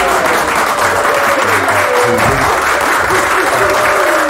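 Background music: a wavering melody over a dense, steady hiss.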